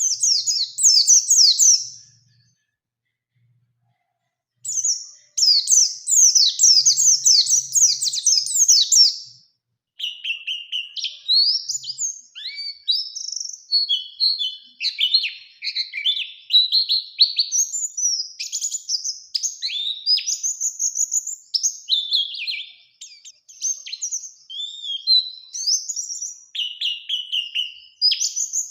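White-eye (pleci) singing in high, rapid twittering bursts, with a pause about two seconds in. From about ten seconds in it breaks into a long, unbroken, varied rolling song, the 'ngalas ngerol' song that lure recordings use to provoke other white-eyes.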